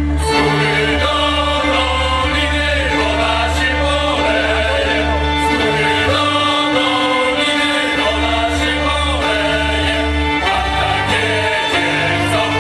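Polish folk dance music, loud: a group of voices singing over instrumental accompaniment with a steady bass.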